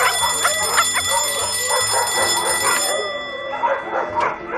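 Cartoon sound effects: a bell rings steadily and stops about three seconds in, while a small dog yaps over and over, a few short yips a second.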